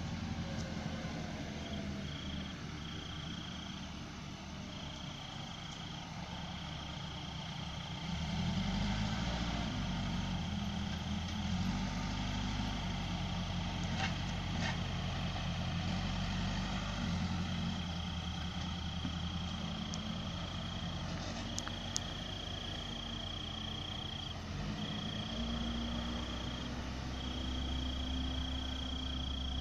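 Case 580M backhoe loader's diesel engine running, its pitch and level shifting up and down several times as the load changes, getting louder about eight seconds in. A steady high insect trill starts and stops over it.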